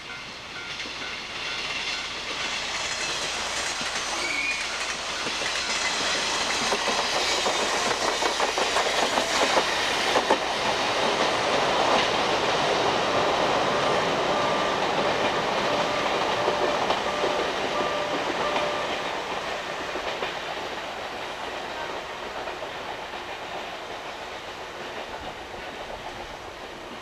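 Nishitetsu Mo200 electric railcar running past, its wheels clattering over the rail joints. The sound builds to a peak about halfway through and fades as the car draws away. A level-crossing bell rings repeatedly at the start.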